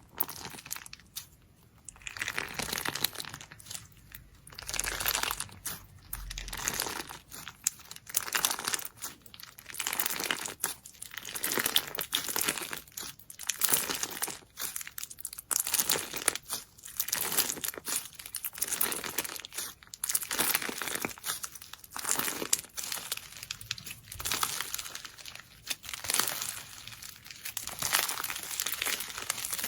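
Slime being squeezed and stretched by hand, giving repeated crackly squishes, one about every second or second and a half.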